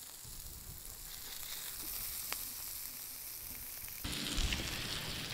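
Sliced onions and jalapeños sizzling in oil on a flat-top griddle, a steady hiss with a single click about two seconds in. About four seconds in the sound suddenly gets louder as a metal spatula scoops up the vegetables.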